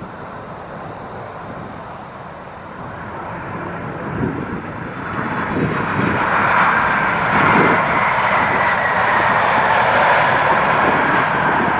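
Jet airliner's engines passing close by, growing louder about five seconds in and then staying loud, with a high whine that slowly drops in pitch.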